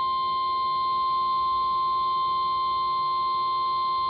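NOAA Weather Radio 1050 Hz warning alarm tone: a single steady high-pitched tone, heard over the radio, signalling that a severe thunderstorm warning is being broadcast.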